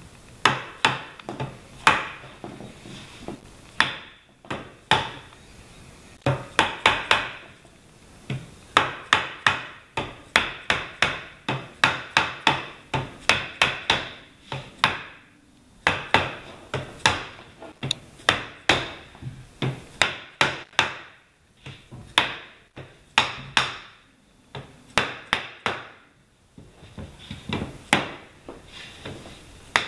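Mallet tapping a cocobolo rosewood frame to seat its joints during assembly: many sharp wooden knocks, often in quick runs of several taps, with short pauses between runs.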